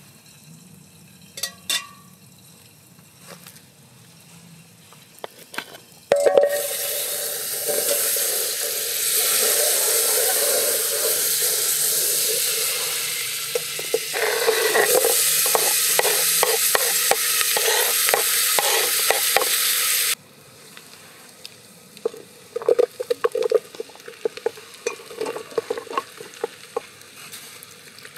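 Food sizzling loudly as it fries in a hot metal pot, with a utensil stirring and scraping against the pot. The sizzle starts suddenly a few seconds in and cuts off abruptly, followed by quieter clinks and clatter of cookware.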